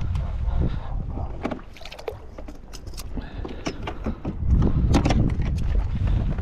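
Scattered clicks and knocks of a freshly caught walleye being unhooked with pliers and handled over a landing net on a plastic kayak deck, over a steady low rumble of wind on the microphone.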